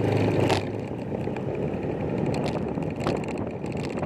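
A vehicle engine running while on the move, with steady road noise and a brief sharp knock about half a second in.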